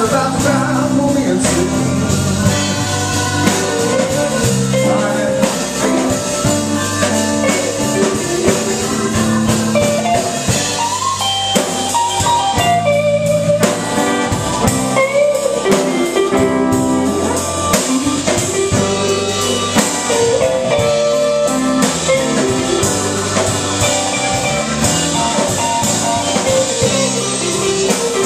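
A blues band playing live: electric guitar with bending notes over a drum kit, loud and steady throughout.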